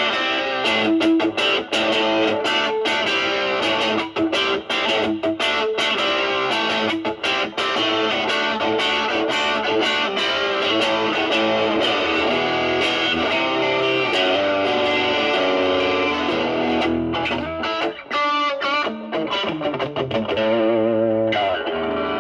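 Electric Stratocaster with single-coil pickups played through a ProCo Brat distortion pedal into a Marshall Valvestate amp, the pedal's gain near 2 o'clock and the tone cleaned up to a light crunch. Quick picked blues lines, with wavering vibrato and bent notes near the end.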